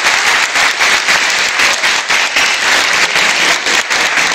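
Audience applauding, a loud, dense clapping that holds steady throughout.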